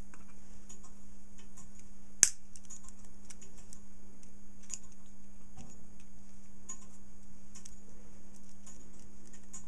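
Small metal clock-movement parts clicking as the movement is taken apart by hand, with one sharp metallic click about two seconds in. Under it there is a steady low hum and faint ticks about once a second.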